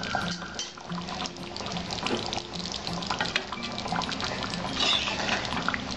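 Thick pointed gourd and potato curry simmering in a wok, bubbling and popping with many small wet clicks, over soft background music.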